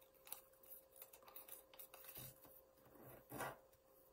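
Faint rustling and light taps of a small folded piece of paper being handled and pressed down onto a tabletop, over a faint steady hum.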